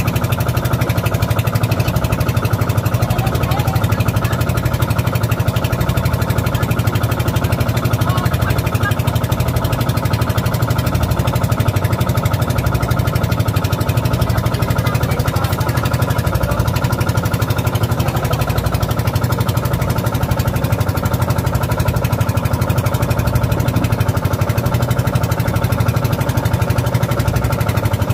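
Small engine aboard an outrigger boat running steadily and loudly at an even, idling speed, with no change in pace.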